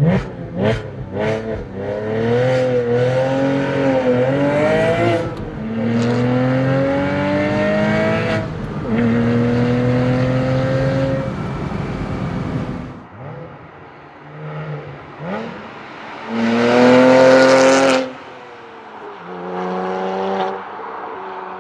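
Porsche Boxster S 987's 3.2-litre flat-six through a Capristo valved exhaust: a few quick throttle blips, then a pull through the gears, the pitch climbing and dropping at each upshift. It drops to a lower level, with one short, loud rev near the end.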